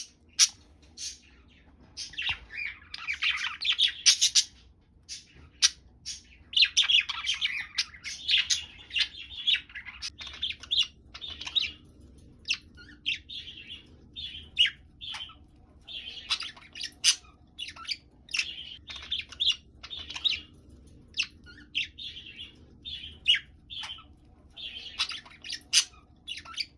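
Budgerigars chirping and warbling: quick sharp chirps mixed with longer bouts of chattering song, over and over.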